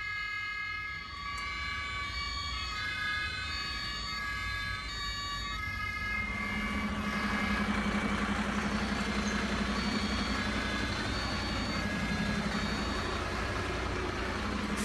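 Electronic siren from a toy fire engine's sound module, its tones stepping between pitches. About six seconds in it gives way to a steady low hum with a hiss over it.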